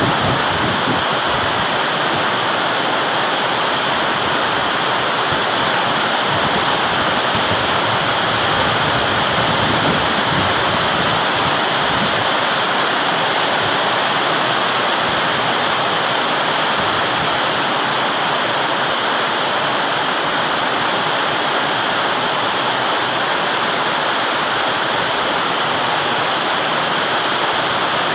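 Water falling in a steady, loud rush, an impromptu waterfall pouring without a break.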